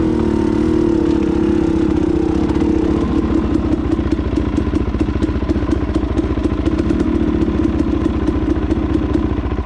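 Dirt bike engine running close by, its pitch wavering briefly and then settling into a steady, even idle.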